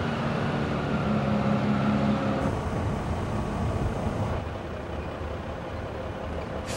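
Cab-over semi tractor's diesel engine running at low speed as the tractor-trailer maneuvers, a steady low hum whose tone shifts about two and a half seconds in.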